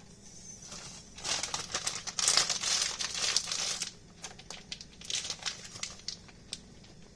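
Crinkling and rustling while onions and peppers are added to a buttered frying pan. It is loudest from about one to four seconds in, then gives way to scattered light taps and clicks.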